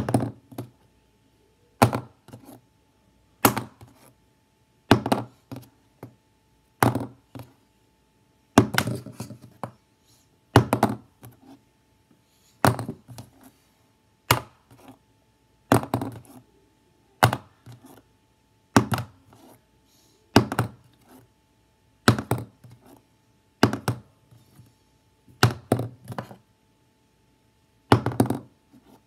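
A plastic highlighter tossed in a flip again and again, landing with a sharp knock and a short clatter of bounces about every one and a half to two seconds.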